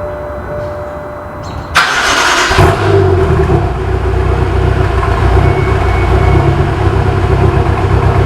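Car engine started: a sudden loud burst as it cranks and catches, about two seconds in, then it settles into a steady idle.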